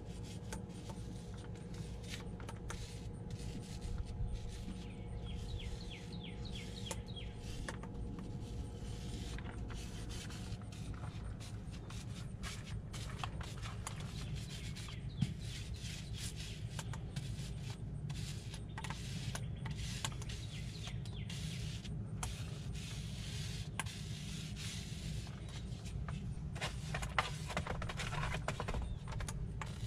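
Small foam roller rubbing resin into fiberglass mat, wetting it out, in short soft scratchy strokes over a steady low rumble.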